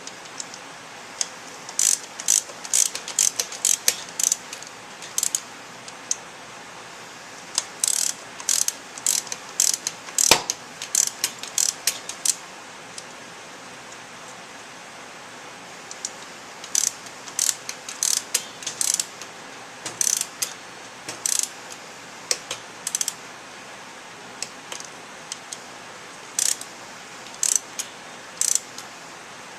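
Torque wrench ratchet clicking in short bursts with pauses between, as cylinder head nuts are tightened to 9 foot-pounds in a crisscross pattern. One sharper, louder click comes about ten seconds in.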